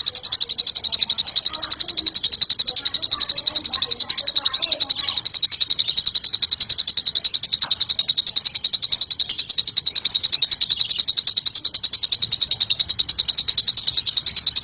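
Green leafbird (cucak ijo) singing a long, unbroken cililin-style trill: a rapid, steady run of high pulses. Faint higher chirps come in twice.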